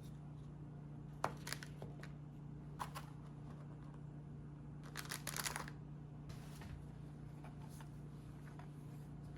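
Kitchen prep handling sounds: a few light clicks and taps, then a brief rattling clatter about five seconds in, over a steady low hum.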